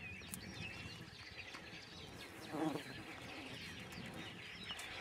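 Faint open-air field ambience with scattered short bird chirps and one brief animal call about halfway through.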